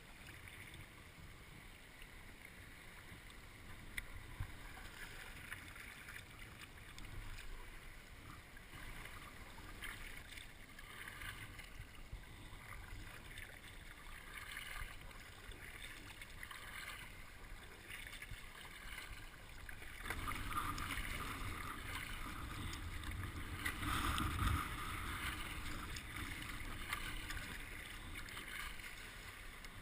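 Water splashing and sloshing from a kayak being paddled, with a steady wash of noise; it grows louder about two-thirds of the way through.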